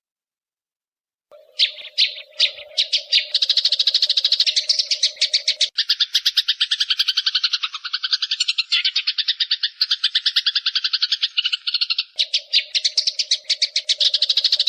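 Eurasian tree sparrow's fighting call: a long, fast, unbroken chatter of rapid high notes, starting a little over a second in.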